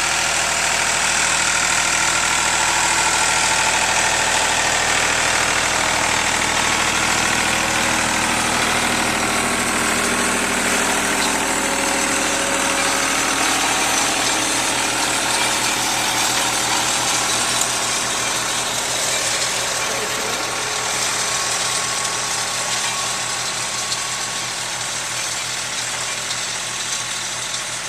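Tractor engine running steadily as it pulls a row cultivator through the weeds.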